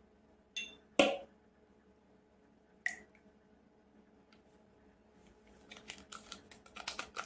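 A glass clinks and is set down with a sharp knock, followed by another small click. Near the end a paper sachet of baking powder crackles and rustles as it is handled and emptied into a plastic mixing bowl.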